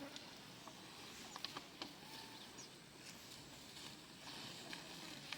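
Faint outdoor ambience: a low hiss with scattered light clicks and a few short, high chirps.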